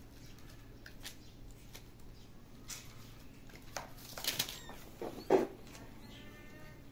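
Kittens playing: scattered light scrabbling, scuffing and clicking of claws and paws on a plastic crate and concrete, with a few louder knocks about four to five and a half seconds in.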